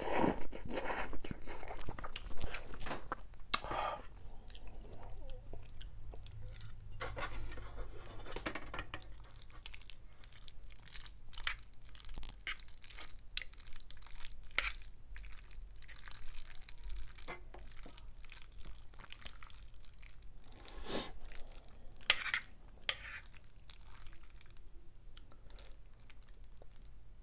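Close-up eating sounds. Instant noodles are slurped in the first few seconds, then macaroni and cheese is chewed, with many small wet mouth clicks and smacks scattered throughout.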